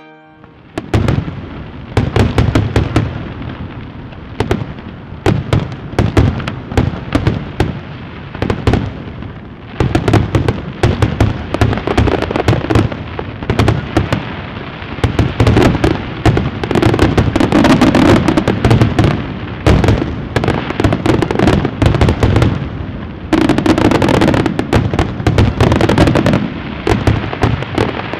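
Fireworks display: a dense, continuous barrage of shell bursts and crackling pops, with booming low bangs under the crackle.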